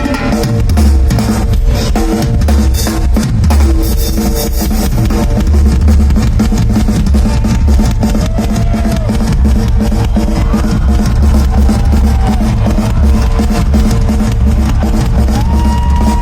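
Rock drum kit solo played live: rapid, dense hits across the kit over a pounding bass drum.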